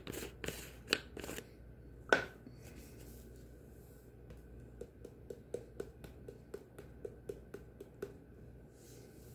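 Onion powder shaken from a plastic spice jar into a stainless steel bowl: a few clicks and one sharper knock in the first couple of seconds as the jar is opened, then a run of light, regular taps, about three a second, as the jar is shaken.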